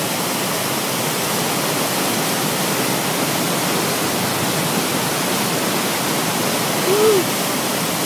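Athabasca Falls: a large waterfall's steady, full rushing roar of falling water. About seven seconds in, a short voice-like sound rises and falls in pitch.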